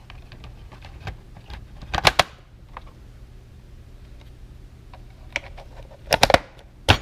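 Plastic clicks and snaps as parts of a Honda Element instrument cluster are snapped back into place. There are two bunches of sharp clicks, about two seconds in and about six seconds in, with lighter ticks between.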